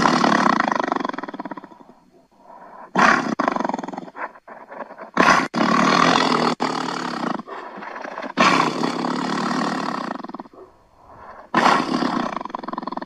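A big cat roaring outside a tent at night: a series of five long, loud roars, one about every three seconds, each starting strongly and tailing off.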